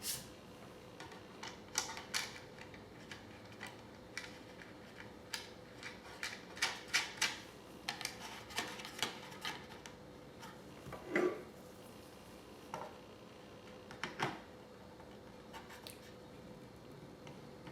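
Small, irregular metallic clicks and taps as a new nut and washer are fitted onto the shaft of a quartz clock movement, over a faint steady hum.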